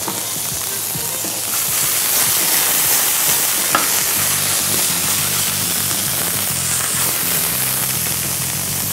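Rabbit meat with mushrooms frying in butter in a hot pan: a steady sizzle as the pieces brown, growing louder about a second and a half in, with one sharp click near the middle.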